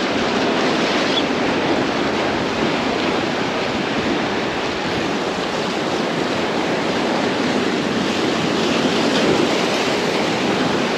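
Steady wash of surf against a rock jetty, a continuous rushing noise with no break.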